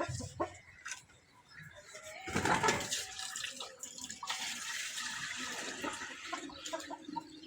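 Milk pouring into a container: a steady splashing stream that starts about two seconds in and runs for several seconds.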